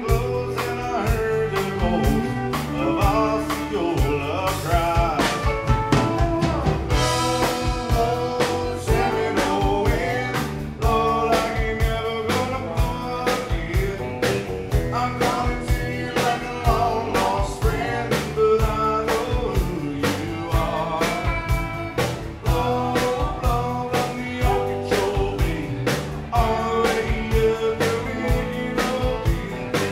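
Live country band playing: a singer over guitars, bass and a steady drum beat.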